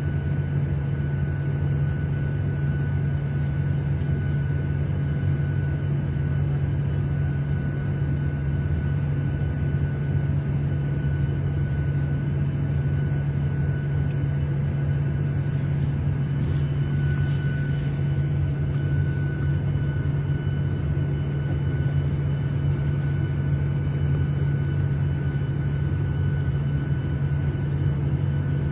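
Airliner cabin noise in flight: a steady, even rush of engine and airflow noise with a strong low rumble and faint constant hums. A few faint clicks come a little past the middle.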